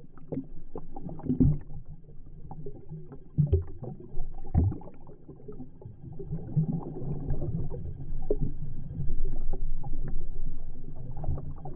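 Water rushing and gurgling around a GoPro camera mounted on a moving wakeboard, half underwater, heard muffled through its housing. Several heavy thumps come in the first few seconds.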